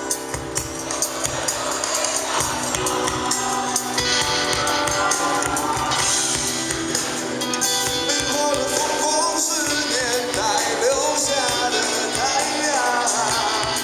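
Rock band playing live, loud and dense with a steady beat, in a passage between sung lines; pitched lines slide up and down about ten seconds in.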